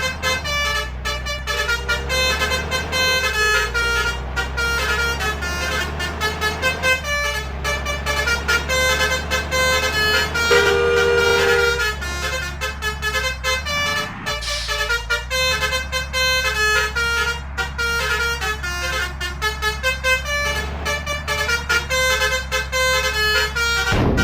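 Basuri multi-tone musical horns ('om telolet') playing rapid runs of melody notes, with one pair of notes held for a moment about halfway through, over the steady low drone of the vehicles' engines.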